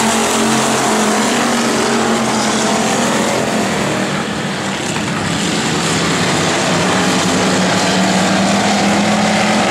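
A field of factory stock dirt-track race cars running at speed around the oval, several engines at once. The sound eases off briefly about halfway as the pack goes down the far side, then builds again as the cars come back around.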